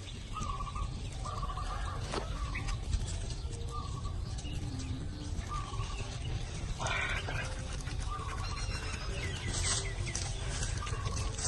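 Birds calling in short, repeated pitched notes over a steady low rumble, with a brief noisy rush about seven seconds in.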